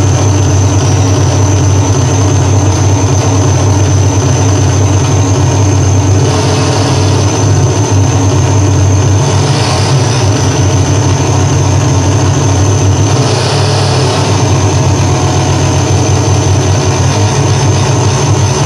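Harsh electronic noise from a REON Driftbox S synthesizer run through a BOSS Metal Zone distortion pedal and a Sherman Filter Bank 2, worked live by hand: a loud, dense, unbroken wall of noise with a heavy low rumble and a thin steady high whine on top. Brief swells of brighter hiss come about six, nine and thirteen seconds in.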